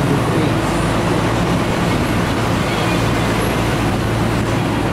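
Steady ride noise on the open top deck of a moving tour bus: a constant low engine hum under even road and wind noise.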